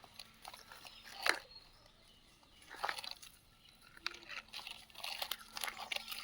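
Small rocks crunching and clicking against plastic toy construction machines as they are scooped and dropped: scattered sharp clicks, one loud about a second in, another near three seconds, and a busier run of clatter near the end.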